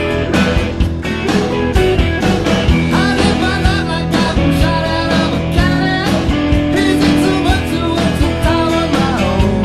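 Studio-recorded rock song: a drum kit keeping a steady beat under bass, guitars and keyboards.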